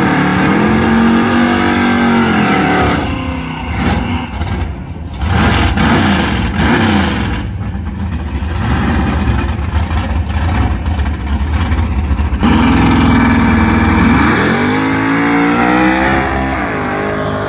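A drag race car's engine revving up and down, then running at a lower, uneven note, then launching at full throttle. The pitch climbs steeply as the car accelerates away, with a brief dip and a second climb near the end as it shifts gear.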